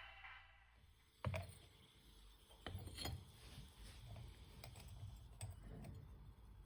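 A few faint knocks and clicks, as of small hard objects being handled, the loudest a little after one second in, then lighter ones spread through the rest; a music tail fades out at the very start.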